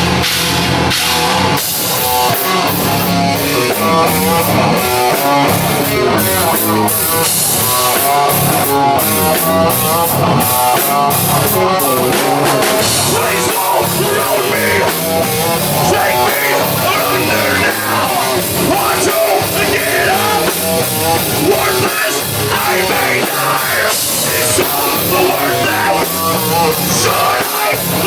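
Live rock band playing loud, with a drum kit and electric guitar.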